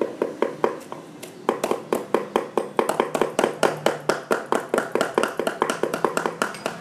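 Cleaver and kitchen knife mincing raw pork and chili paste on two round wooden chopping boards at once: rapid, overlapping knocks of the blades on the wood, several a second. There is a brief lull about a second in.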